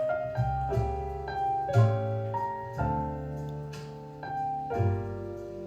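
Background jazz on piano, chords and melody notes changing about every half second over a bass line.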